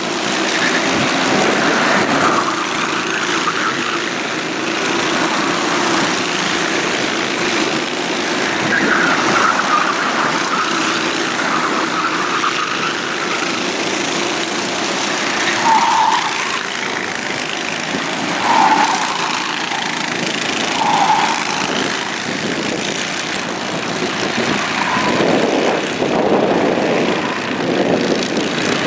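Racing kart engines buzzing continuously as several karts run round the circuit. The pitch swells and falls away as karts pass by, with a few short louder swells near the middle.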